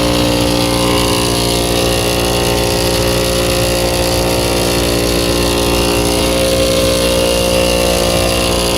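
Rooftop HVAC unit running with a steady, unchanging hum and mechanical noise, its compressor sounding rough, which the technician takes for a bad-sounding compressor on a unit that is otherwise running well.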